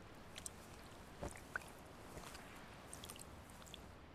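Polar bear chewing and biting at a freshly caught fish: faint, irregular wet smacks and crunches, with a louder knock about a second in.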